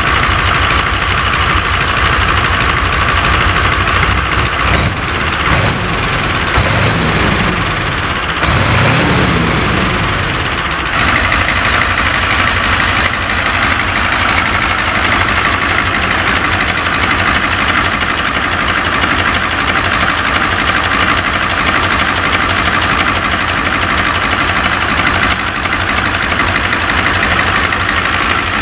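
Guiberson T-1020 nine-cylinder air-cooled radial diesel engine running, its pitch rising and falling a couple of times in the first ten seconds, then running steadily.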